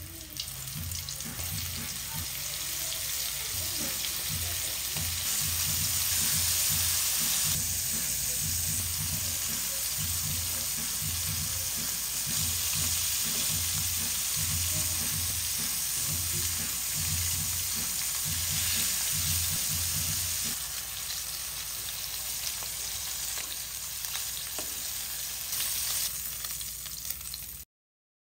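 Flour-battered squid rings deep-frying in hot oil in a wok: a steady, loud sizzle, stirred now and then with metal tongs. It cuts off suddenly near the end.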